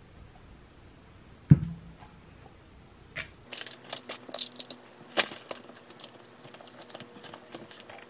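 A single hard knock about a second and a half in, something set down on the table, with a short ring. Then paper sounds: books handled and pages flipped, with many small clicks and rustles.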